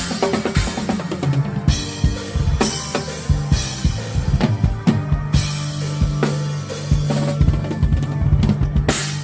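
Tama Starclassic drum kit with Zildjian cymbals played live over a backing track: busy bass drum, snare and cymbal strokes over a held low note from the track, closing on one loud cymbal hit near the end.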